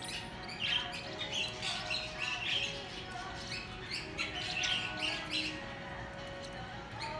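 Small parrots chirping: many short, high chirps, about two a second, with brief gaps.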